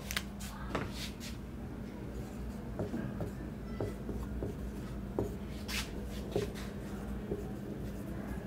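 Marker pen writing on a whiteboard: light, irregular squeaks and taps of the tip on the board, over a steady low hum.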